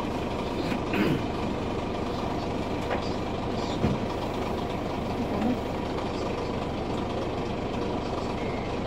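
River cruise boat's engine running steadily, with short snatches of passengers' voices.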